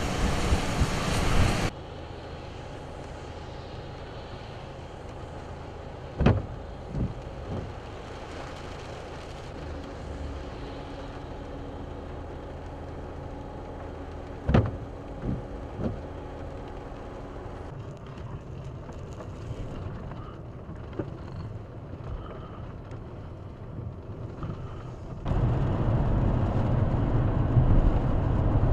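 Strong wind on the microphone for the first couple of seconds. Then the quieter, steady hum of a vehicle heard from inside the cab, with a few sharp knocks. About 25 seconds in it cuts to a loud, steady rumble and rush of a vehicle on a wet road in heavy rain.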